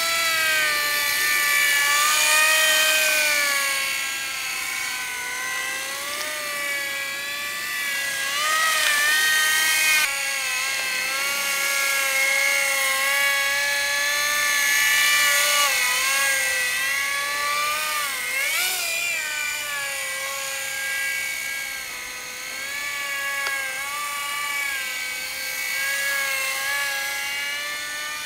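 Model helicopter's motor and rotors whining in flight, converted from a coaxial Graupner Koala to a single fixed-pitch main rotor with a driven tail rotor. The whine keeps rising and falling in pitch as the rotor speed changes, which is how a fixed-pitch helicopter climbs and descends, over a steadier high tone.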